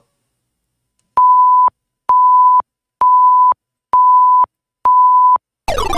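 Electronic countdown timer beeping five times at one steady pitch, about one beep a second and each about half a second long, counting down the five-second answer time. Near the end a falling cascade of electronic tones starts, a sound effect marking that time is up.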